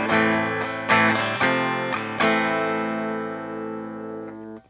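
Yamaha SG-5A "Flying Samurai" electric guitar played on its bridge pickup alone: several strummed chords in quick succession. The last chord rings for about two seconds and is cut off sharply near the end.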